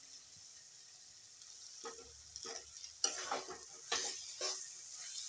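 Jackfruit pieces being stirred into spiced masala in a hot kadhai with a metal spatula: a light steady sizzle, then from about two seconds in, several scraping strokes of the spatula against the pan.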